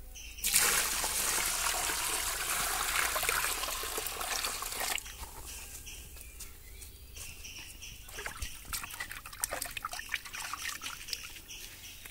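Water pouring into a metal basin of raw chicken pieces, starting about half a second in and cutting off sharply about five seconds in. After that, light splashes and drips as hands rinse the chicken in the water.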